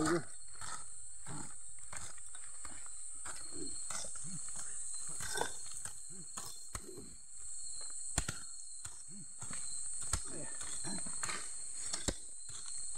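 Digging into packed soil with a blade and a stick to open an underground hornet nest: irregular scraping and sharp knocking strikes, over a steady high-pitched chorus of night insects.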